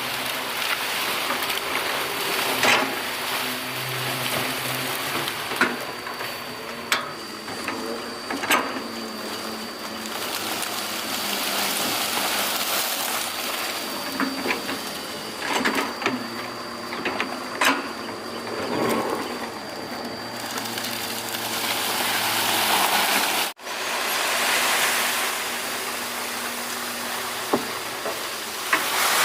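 Excavator's diesel engine running with its load changing, under a thin steady high whine, with scattered sharp knocks and clanks from the machine at work. The sound drops out for an instant about two-thirds through.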